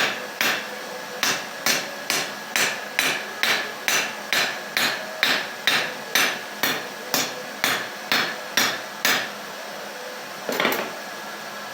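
Blacksmith's hammer striking a hot steel rod on an anvil in a steady rhythm of about two blows a second, drawing the end of a scroll out to fan it. The blows stop about nine seconds in, and one more strike comes near the end.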